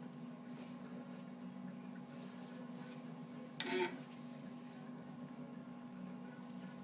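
Steady low electric-motor hum from the machine-shop equipment, with one short clatter a little over three and a half seconds in.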